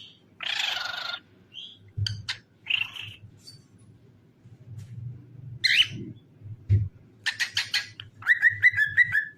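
Cockatiel calling and chirping: a harsh screech about half a second in, scattered short chirps, then a quick run of clicks followed by a string of short whistled notes near the end.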